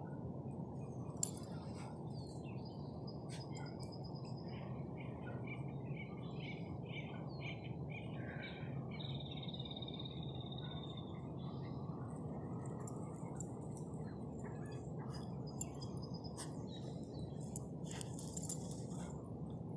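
Several wild songbirds calling at a riverside: a run of quick chirps, a held trilling note near the middle and high thin calls later, over a steady low background rumble. A single sharp click about a second in.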